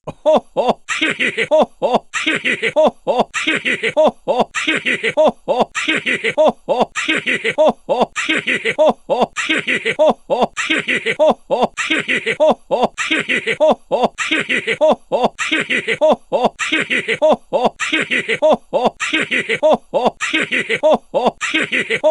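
A short, cartoonish laughing voice clip, 'ohoho heheheha', played as a loop and repeating over and over at an even pace.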